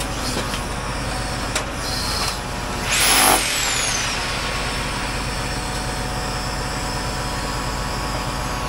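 Lorry-mounted hydraulic crane working, its truck engine running steadily as the brick grab sets down a pallet of bricks and lifts away. A short, loud hiss with a falling whistle about three seconds in.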